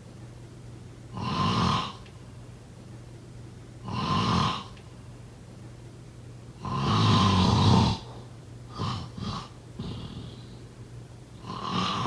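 A person snoring in sleep, one snore every two to three seconds. In the middle comes a longer, louder snore, followed by a few short, broken ones.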